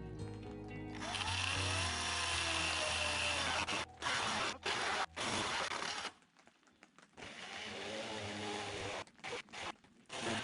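A power saw running and cutting wood, its motor pitch dropping under load, in short pieces that cut off abruptly, with background music under the first second.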